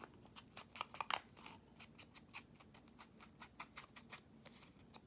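Foam ink blending tool dabbed and rubbed along the edge of a paper cutout, making faint, quick scuffing taps several times a second.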